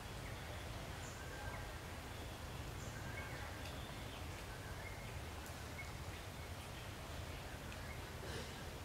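Quiet outdoor ambience: a steady low rumble with scattered faint, short high chirps.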